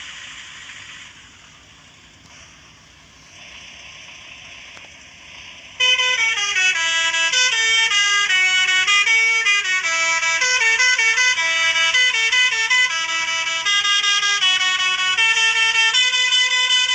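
Faint hiss for about six seconds, then a Basuri telolet musical horn starts suddenly and plays a loud melody of quickly changing trumpet-like notes.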